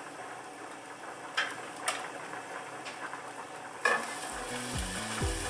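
Hot oil and onions sizzling in a frying pan, with a couple of light utensil clicks. About four seconds in there is a sharp knock as raw ground beef is tipped off a plate into the pan.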